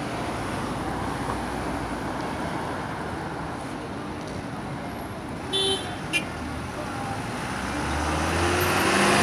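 Steady road traffic from cars passing on a multi-lane road, with a short high beep about five and a half seconds in. Near the end, a vehicle's engine and tyres grow louder as it approaches.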